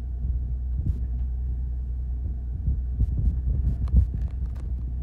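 Fishing boat's engine running with a steady low throb and hum, under irregular thumps and splashes of rough sea and wind against the boat, most of them in the second half.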